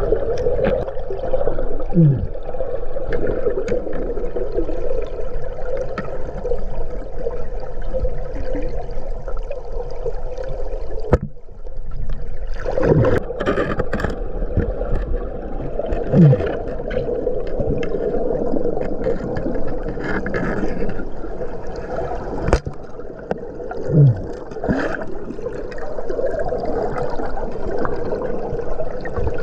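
Steady rush and gurgle of river water. Four times, a short low sound drops in pitch, and the sound cuts out briefly about eleven seconds in.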